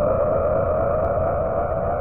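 Synthesized energy-beam sound effect for a Dragon Ball-style Kamehameha blast: a wavering hum that creeps slowly upward in pitch over a steady low rumble.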